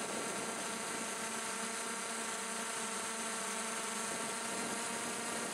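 Multirotor drone's electric motors and propellers running at a steady pitch: an even whine of many held tones over a hiss.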